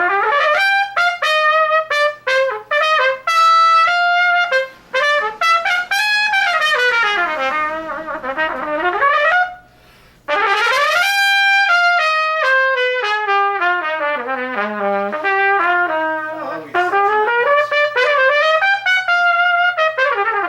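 A single instrument playing solo: quick runs of notes climbing and falling like scales, some notes held, with a short break about ten seconds in.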